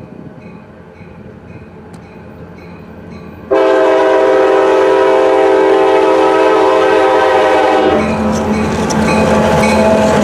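A crossing bell rings faintly. About three and a half seconds in, the horn of the lead EMD GP40-2 locomotive sounds one long blast of about four seconds and stops abruptly. Then the locomotive passes close by, its diesel engine running and its wheels clacking over the rail.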